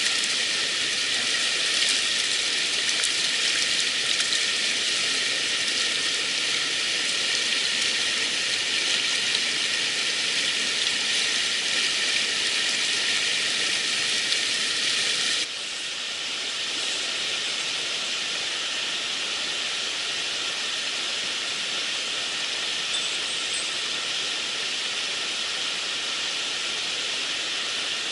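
Rushing water of a mountain stream, a steady hiss that drops abruptly to a lower, softer level about halfway through.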